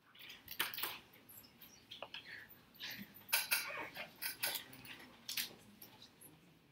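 Faint, irregular light clicks and taps from a laptop being worked by hand while its touch setting is fought with.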